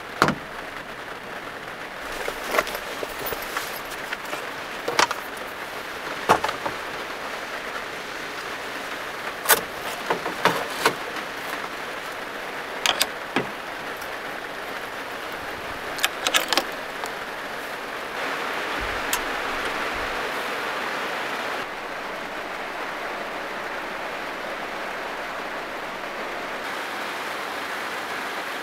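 Rain falling steadily on a small van, heard from inside the cabin as an even hiss, with scattered sharp clicks and knocks in the first two-thirds; the rain grows a little louder for a few seconds about two-thirds of the way in.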